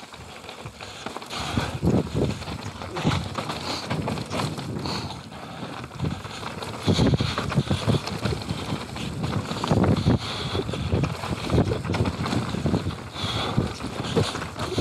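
YT Capra 29 full-suspension mountain bike riding fast down a dry dirt singletrack: tyres rolling and scrabbling over dirt, roots and leaves, with the bike knocking and rattling over bumps and wind rushing on the microphone. The riding gets louder and rougher about halfway through.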